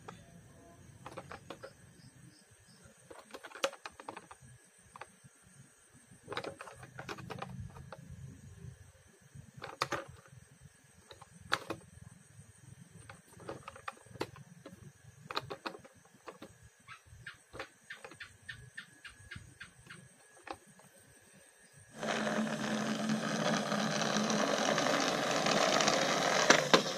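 Plastic toy cars being handled in a cardboard box: scattered clicks and knocks of plastic against plastic and cardboard. About 22 seconds in, a louder steady rolling noise starts as the plastic toy police car runs along a play mat, and it stops just before the end.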